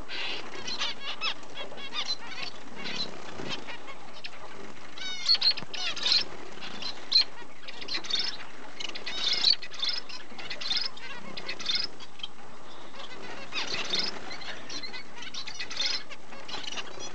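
Small cage finches chirping in short, high notes scattered through, with a few louder calls about five, nine and fourteen seconds in, over a steady background hiss.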